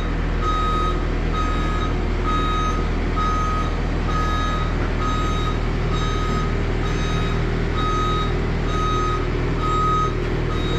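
Backup alarm of a reversing machine, a single-tone beep repeating a little more than once a second, over the steady low running of its engine.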